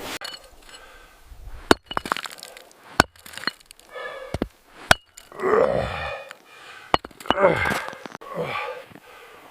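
Several sharp cracks and snaps, with low grunts that slide down in pitch in between, the loudest a little past halfway.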